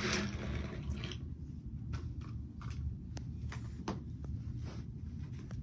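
Handling noise from a camera being set up and things being moved about on a couch: a short rustle at the start, then scattered light clicks and taps over a low rumble.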